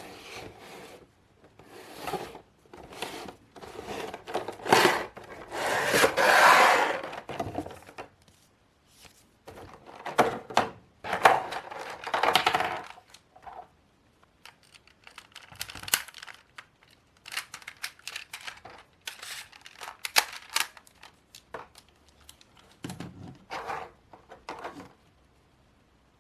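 Toy and its packaging being handled and opened: irregular rustling, rubbing and tearing with scattered clicks and knocks. The noise comes in two louder spells, then thins to sparse clicks near the end.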